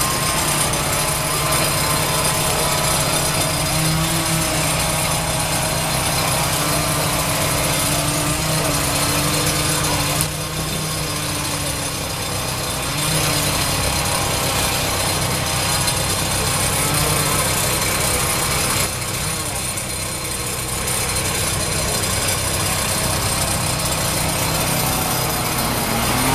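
A small gasoline engine running steadily, its level dipping briefly twice, about ten and nineteen seconds in.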